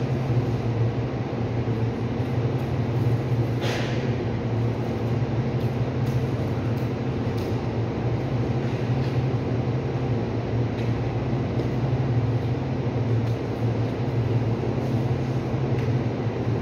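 Steady low hum of a ceiling-mounted cooling unit's fan and motor, with a brief scraping sound about four seconds in.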